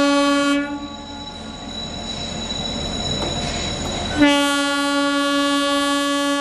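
Indian Railways electric locomotive's horn: one blast cutting off about half a second in, then a second long, steady blast from about four seconds in, still sounding at the end. Between the blasts a faint, high, steady whine is heard.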